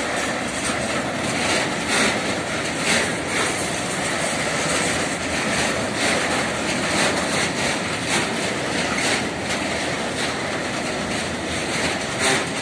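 Tank wagons of a freight fuel train rolling past, with a steady rumble of wheels on the rails and sharp wheel clacks at uneven intervals, every half second to a second.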